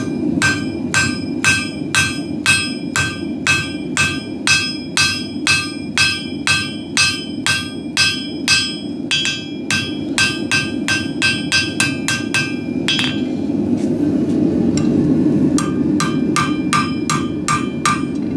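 Hand hammer striking red-hot steel on an anvil to flatten the end of the bar: steady ringing blows about two a second, a pause of a couple of seconds near the end, then quicker blows. A gas forge runs steadily underneath, plainest in the pause.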